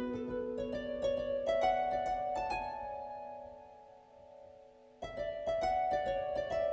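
Background music of plucked strings playing a slow melody. The notes die away about four seconds in, and a new phrase starts sharply a second later.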